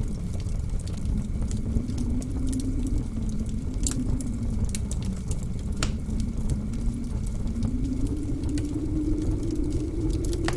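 Snowstorm wind whistling in a low wavering tone that slowly rises in the second half, over a steady low rumble, with scattered sharp crackles from a wood fire.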